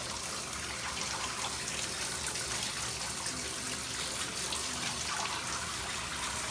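Water running steadily from a handheld shower head, spraying over a wet dog and splashing into a bathtub.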